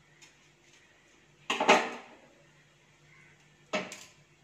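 Two sharp knocks of a knife through a lemon onto a chopping board: the louder one about a second and a half in, the other near the end.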